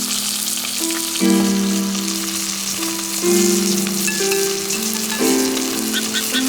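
Steady sizzling and crackling of fish grilling over a campfire of scrap wood, under background music of slow held chords that change every second or two.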